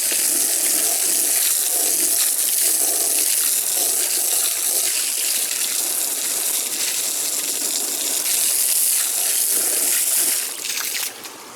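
Water spraying steadily from a hose onto a chair, rinsing cleaner off it. The spray cuts off about ten and a half seconds in.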